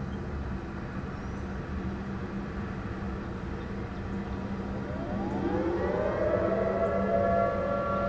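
Outdoor tornado warning siren winding up during a test: after about five seconds of steady low background rumble, several tones rise together in pitch and level off into a steady wail, getting louder.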